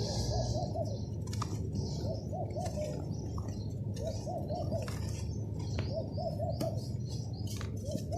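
A bird cooing in short phrases of three or four notes, repeated about every two seconds, over a steady low rumble, with a few faint clicks.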